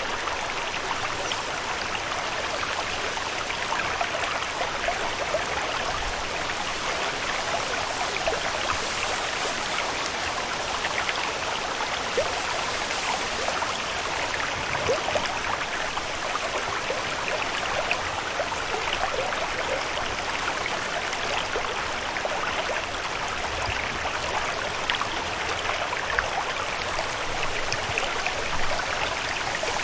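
Steady ambience of running water, an even wash of many small splashes and trickles with no break.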